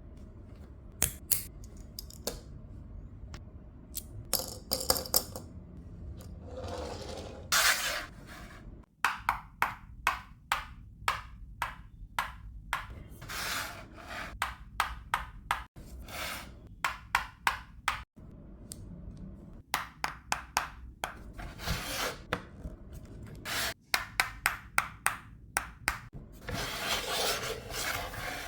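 Plastic LEGO bricks clicking and snapping together in quick runs of sharp clicks, with bursts of rattling as loose pieces are sorted through by hand.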